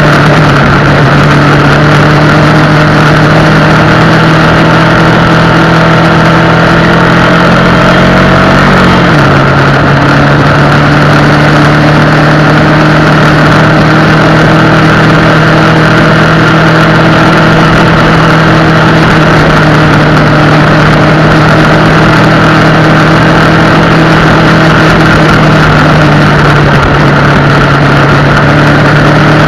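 Honda XR250 Tornado's single-cylinder four-stroke engine running steadily, with a brief rise in pitch about eight seconds in that drops back, over a steady rushing noise.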